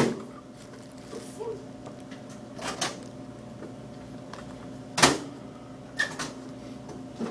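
Sharp clunks of doors being opened and shut, about four over several seconds, the strongest at the start and about five seconds in, over a steady electrical hum.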